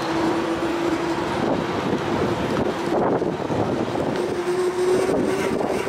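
Steady rushing noise of riding a bicycle down a street, with wind on the microphone and a steady hum that rises slightly in pitch near the end.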